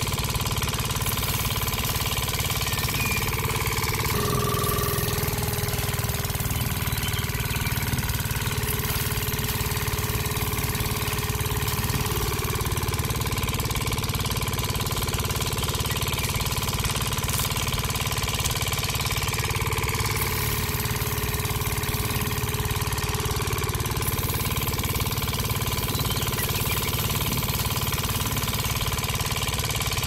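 A small engine-like motor running steadily with a fast, even low chugging and a faint held hum above it.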